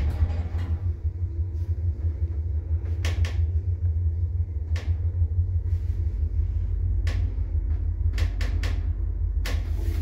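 Passenger lift car (a 2001 installation) travelling in its shaft: a steady low rumble from the moving car and drive, opening with a knock as it gets going, with several sharp clicks along the way and a quick cluster of them near the end.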